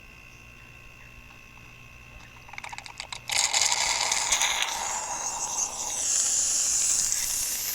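A faint steady hum, then a few quick clicks about two and a half seconds in and a loud hiss that starts suddenly and carries on: air and compressor oil being sucked into the evacuated car air-conditioning system through an opened valve.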